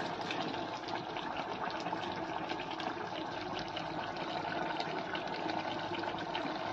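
Chicken and potato curry simmering in a frying pan on a gas burner: a steady bubbling hiss with many small crackles.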